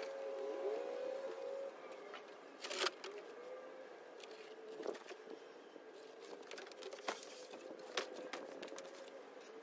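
Faint rustling and scraping of a large cardboard shipping box being lifted up and off a tool chest, with a few sharp knocks and cracks of the cardboard, the loudest about three seconds in. A faint steady hum stops about two seconds in.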